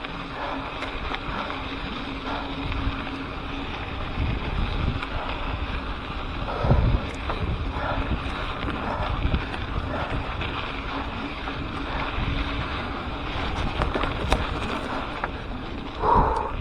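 Mountain bike riding down a dirt trail, heard through an action camera's microphone: wind rushing over the mic and a steady rumble from the tyres and bike, with scattered rattles and one heavy thump about seven seconds in.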